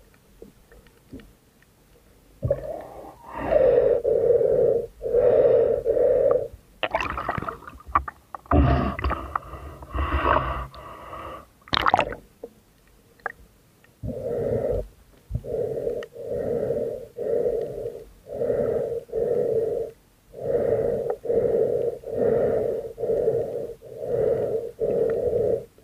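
Heavy breathing through a snorkel tube, rasping breaths in and out about once a second. There is a louder, rougher stretch of noise around the middle.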